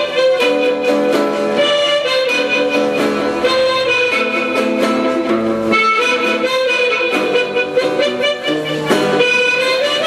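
Harmonica held in a neck rack playing a sustained, reedy melody over a strummed acoustic guitar, one man playing both at once.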